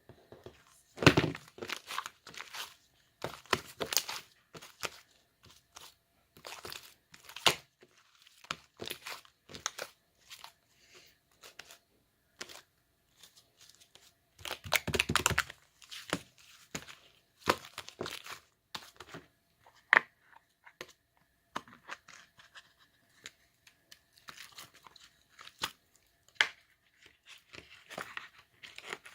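Hands crinkling and tearing packaging or paper in irregular bursts, with scrapes and small knocks; the loudest bursts come about a second in and around fifteen seconds in.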